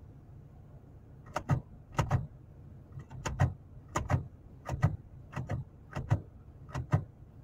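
Gear selector lever of a 2007 Jeep Grand Cherokee being moved through its positions: a run of sharp clicks, often in pairs, about every half-second to second, starting about a second and a half in, over the steady low idle of its 3.7 V6. Each shift now shows on the cluster, a sign that the U0103 lost-communication fault with the electronic gear shift module, caused by a poor connection at the front module's terminal, is cured.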